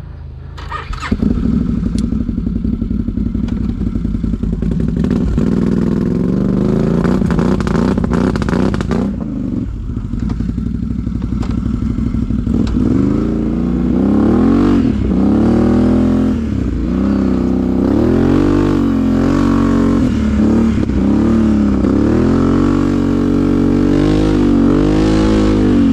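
A vehicle's engine starts up about a second in and runs steadily, then revs up and down again and again as it is driven.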